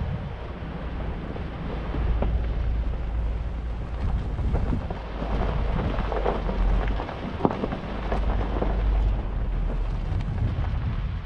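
Wind buffeting the microphone as a steady low rumble and rushing hiss, with scattered short crackles and knocks between about four and nine seconds in.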